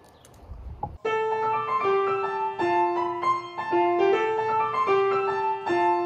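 Solo piano music that comes in suddenly about a second in and plays a melody of held notes over changing bass notes.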